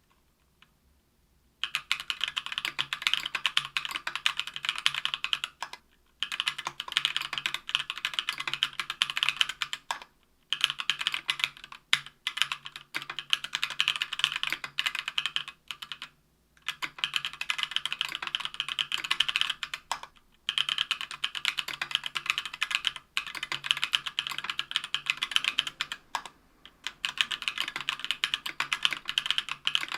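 Fast typing on a Tofu 60% aluminium-case keyboard with stock, unlubed JWK CW 65 g linear switches on an aluminium plate under GMK Triumph Adler keycaps. A dense run of keystrokes starts about two seconds in and goes on in stretches of several seconds, broken by short pauses.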